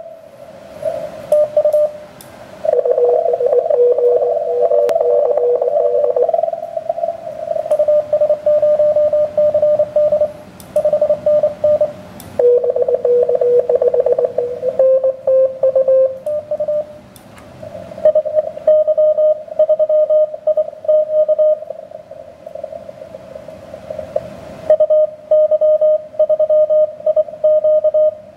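Morse code (CW) signals from a ham transceiver's speaker on the 17 m band: several stations' keyed tones at slightly different pitches overlapping, a CW pileup of callers, with static crackle and clicks between them.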